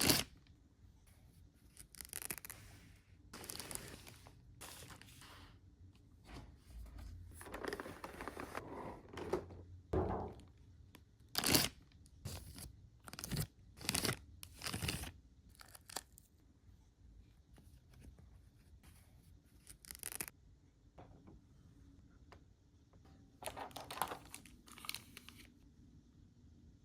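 Packaging being torn open and handled, in short irregular bursts of tearing and crinkling with pauses between them.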